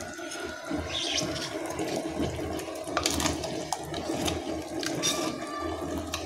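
Boiled sago being scraped from a plastic tub into a steel pot of jaggery payasam: wet sloshing and plopping, with a few sharp clicks of the tub against the pot.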